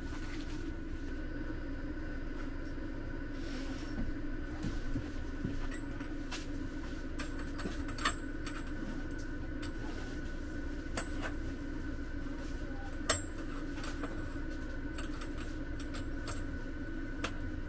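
Steady mechanical hum with a faint high whine running underneath, with scattered soft knocks and clicks; a sharp click about thirteen seconds in is the loudest.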